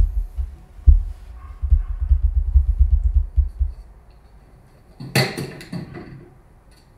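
Low, rapid thudding rumble of a handheld camera being carried and jostled as its operator moves, lasting about three and a half seconds. About five seconds in there is a brief, louder burst of noise.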